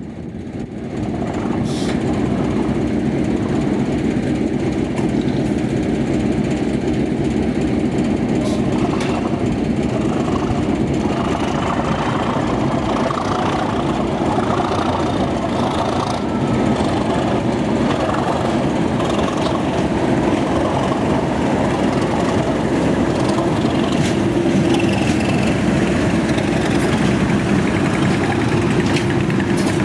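Class 37 diesel locomotives' English Electric V12 engines running steadily as the locomotives come up and pass close by with a train.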